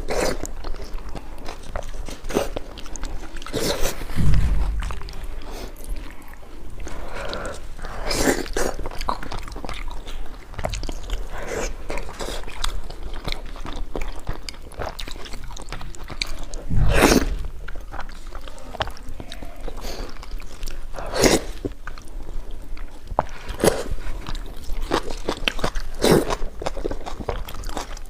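Close-up eating sounds: a person biting and chewing food, with irregular crunches and mouth noises. Two heavier low thumps come about 4 seconds in and again about 17 seconds in.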